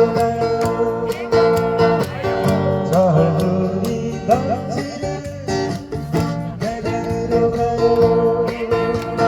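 Acoustic guitar strummed in a steady rhythm with a sustained melody line over it: the instrumental passage after the last sung line of a song.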